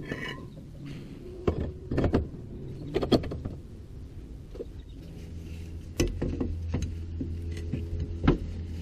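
Sharp metal knocks and clanks of tools and parts during reassembly of a car's rear wheel hub and bearing, about half a dozen strikes. A steady low hum comes in about halfway through.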